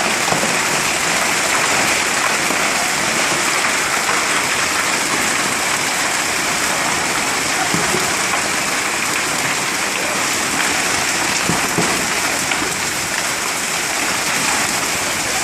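Heavy hail and rain pelting down together, a dense steady hiss.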